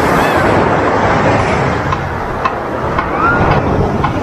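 Ocean surf washing up on a sandy beach: a loud, steady rush of breaking waves.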